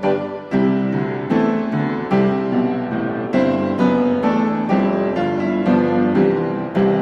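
Instrumental background music led by piano or electric piano, notes struck in a steady rhythm.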